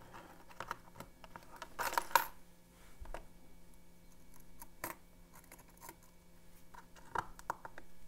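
Thin stainless-steel lock picks clinking lightly against each other and the mat as they are picked from a pile and slid onto an assembly post. The ticks come in a few short clusters, the loudest about two seconds in.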